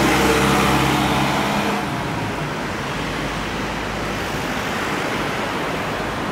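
Road traffic: a nearby vehicle engine's steady hum for about the first two seconds, fading into a steady rush of passing traffic.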